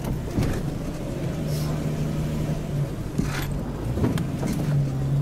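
A Jeep's engine running steadily at low revs while crawling over rough dirt, heard from inside the cabin. A few sharp knocks and rattles from the body and suspension come over the bumps.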